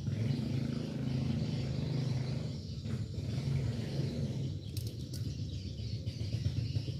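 An engine running with a steady low rumble, with a faint even hiss above it.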